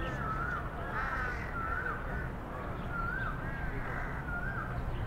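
Crows calling: a steady run of short, wavering calls, several a second, over a low steady background rumble.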